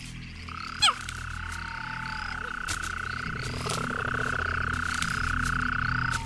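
Night chorus of frogs trilling steadily, with a sharp falling chirp about a second in. A low pulsing sound swells in underneath from about halfway.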